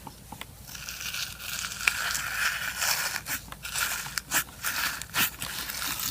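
Aqua clicky slime with micro foam beads being squeezed and played with by hand, giving irregular sharp clicks and pops over a crackling hiss.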